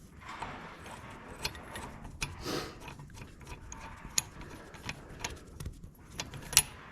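Metal clinks, ticks and short scrapes of hand tools and steel engine parts being handled, scattered irregularly, as a loosened cylinder sleeve and a bolt are worked out of a tractor engine block.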